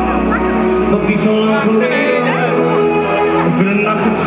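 Live pop band music through the stage PA, with piano and electric guitar under a male lead vocal; the deep bass drops out about a second in.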